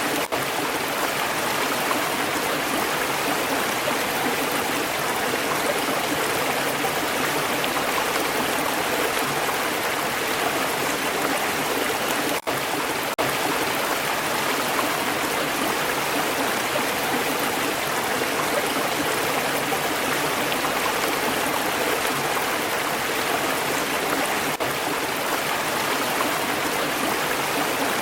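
Stream water flowing steadily over stones, a continuous rushing and trickling, broken by a momentary dropout about halfway through.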